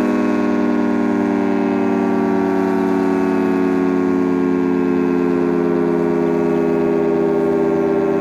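Federal Signal 3T22 three-tone electromechanical siren sounding loudly. Its chord of several steady tones slides slowly lower in pitch, and the loudness wavers slightly.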